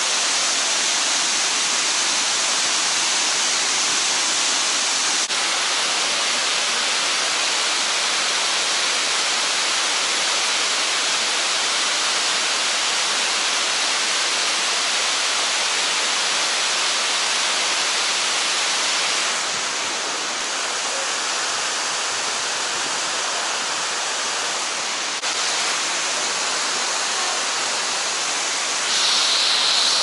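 Fukuroda Falls, a broad tiered waterfall, rushing steadily with a dense, even hiss of falling water. It dips slightly in loudness about two-thirds of the way in, and a short high tone sounds near the end.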